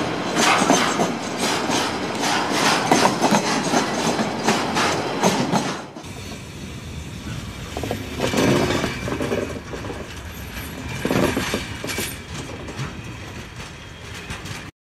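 Freight train of empty flat wagons rolling past close by, the wheels clicking in a quick steady rhythm over the rail joints. About six seconds in it cuts off abruptly to a quieter, different rumbling sound with two louder swells.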